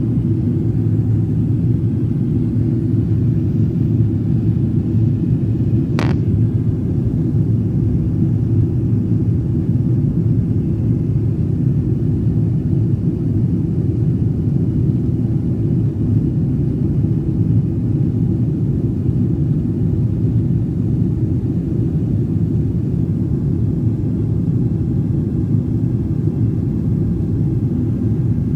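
Airliner cabin noise in flight: a steady low rumble of engines and airflow heard from a window seat. A single short click about six seconds in.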